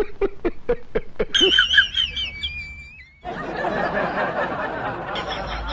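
A person laughing in quick, even bursts, then a high, wavering squeaky glide. After a short pause, about three seconds in, a long, noisy, sputtering wet fart sound starts and runs on.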